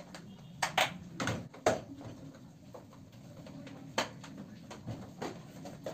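Plastic lunch box being handled and closed: a series of sharp plastic clicks and knocks, about seven spread unevenly over a few seconds, over a faint steady low hum.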